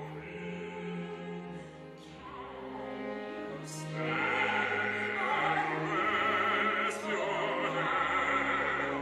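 Live opera music: an orchestra sustaining low notes, with a wavering vibrato line above that grows louder about four seconds in.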